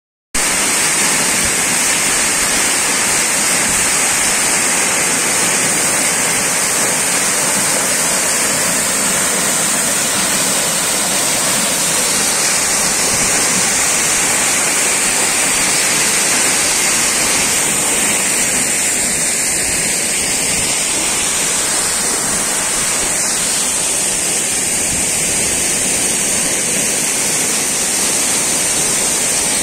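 A tall waterfall plunging down a rocky cliff: a loud, steady rush of falling water that does not let up.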